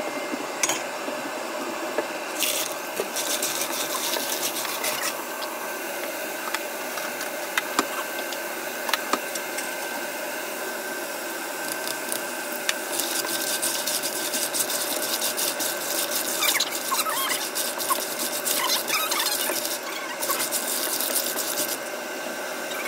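Stir-frying in a nonstick wok: oil sizzling while a spatula scrapes and rubs across the pan, first over chopped shallots and later over clams, whose shells click and clatter as they are tossed in the sauce.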